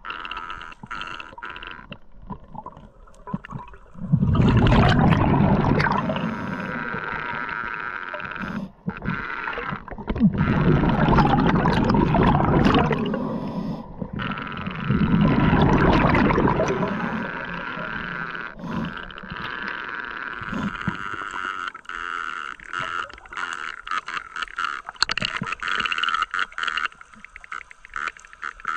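Underwater sound at a diver's camera: a constant crackle of clicks over a steady hum, broken by three loud, rushing, bubbling bursts of about two seconds each, about four, ten and fifteen seconds in, like a diver's exhaled bubbles.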